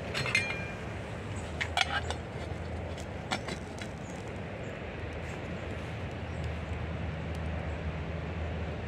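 Metal pot lid clinking against a steel cooking pot as it is set on, a few sharp clicks in the first few seconds, over a steady low background hum.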